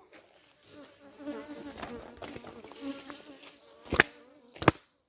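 Honey bees buzzing close around the hive, several wavering buzzes overlapping for a few seconds. Near the end come two sharp knocks, the loudest sounds, about a second apart.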